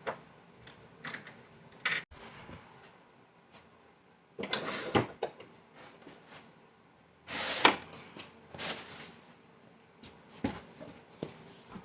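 Intermittent knocks, clicks and short clattering scrapes from handling a woodworking vise and its mounting parts on a workbench, with the louder clatters about a third and two-thirds of the way in.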